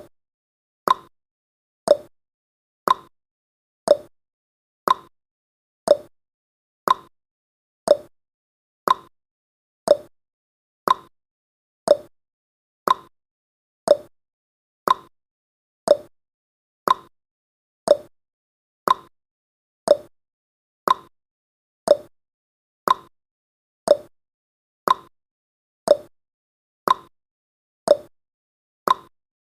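Countdown timer's ticking sound effect: one short, sharp tick every second, each dying away quickly, evenly paced.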